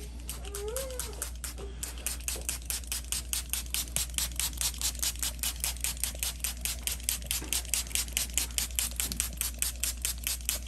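Paintbrush dabbing paint onto model rocks: rapid, even taps, about six a second.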